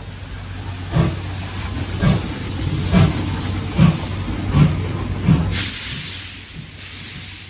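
C11-class steam tank locomotive pulling away, its exhaust chuffing about once a second and quickening as it gathers speed. Steam hissing takes over near the end.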